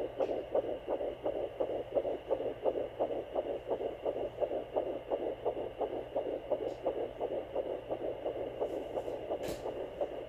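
Sonoline B handheld fetal Doppler picking up the heartbeat of an 11-week fetus: a fast, even whooshing pulse through the device's speaker. Near the end there is a single short click.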